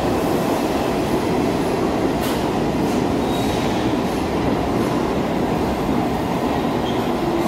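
New York City subway train running along a station platform: a steady rumble of wheels and cars on the track, with a few short, high wheel squeals.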